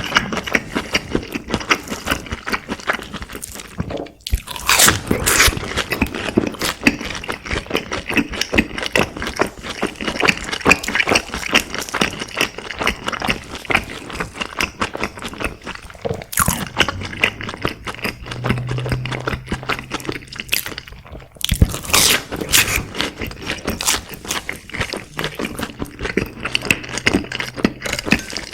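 Close-miked chewing of crispy fried food: dense, crackly crunching with wet mouth clicks, pausing briefly a few times. A low hum comes in twice in the second half.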